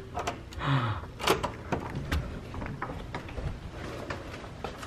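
Electronic hotel-room door lock and handle being worked as the door is unlocked and opened: a run of sharp clicks and mechanical knocks, thinning to lighter ticks.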